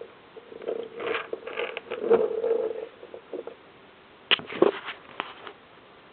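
Toy train engines being pushed by hand along a tabletop: short bursts of rolling and scraping, then a few sharp clicks and knocks about four seconds in.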